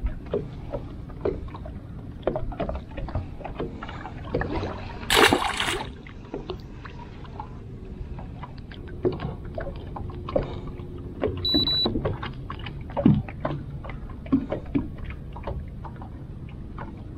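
Scattered knocks and clicks with water sounds on a small fishing boat. About five seconds in comes a brief, loud rush of noise, and a short high beep sounds a little past halfway.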